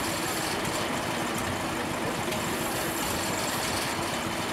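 John Deere D tractor's two-cylinder engine idling steadily.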